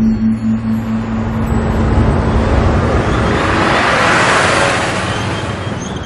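Town street traffic noise that swells and fades, like a vehicle passing, under a low held note that dies away over the first couple of seconds.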